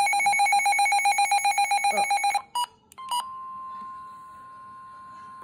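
Midland weather alert radio sounding its alarm: a rapid pulsing beep, about ten a second, that stops about two and a half seconds in. After two short clicks, a steady single-pitch tone begins and holds: the warning alarm tone broadcast by NOAA Weather Radio before a tornado warning is read.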